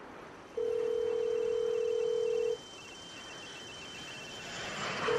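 Telephone ringback tone on an outgoing call: a steady tone lasting about two seconds, beginning about half a second in and starting again right at the end, over faint line hiss.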